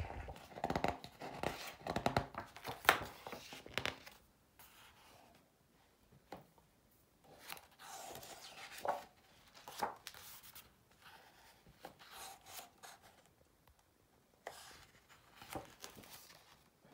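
Pages of a large hardcover photo book being turned and handled: paper rustling with soft slaps and taps, busiest in the first few seconds, then a handful of separate page turns.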